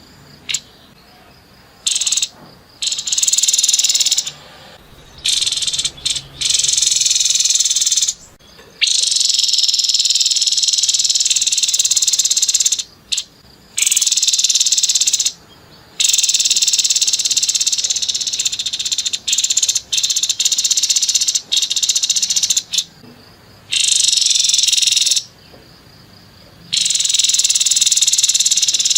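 Grey-headed babbler giving harsh, rapid, high-pitched rattling calls in repeated bursts. Some runs last several seconds, with short breaks between them.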